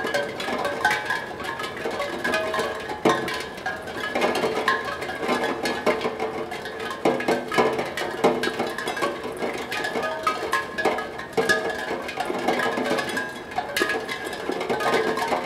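Raindrops falling on a steel tongue drum, striking its tuned tongues at random so that it rings with scattered, overlapping notes in no regular rhythm.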